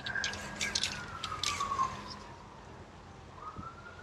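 A distant wailing siren: one steady tone that slowly falls in pitch over about two seconds and climbs back near the end. A run of sharp ticks sounds over the first two seconds.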